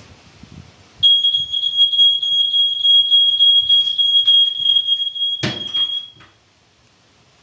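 Smoke alarm sounding a steady, piercing high-pitched tone, set off by smoke filling the room. It starts about a second in and cuts off about six seconds in, shortly after a loud thump.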